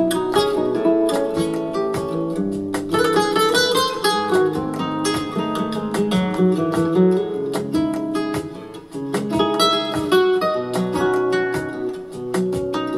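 Acoustic guitar music with quick plucked and strummed notes, played back from a CD on a Kenwood DP-520 CD player.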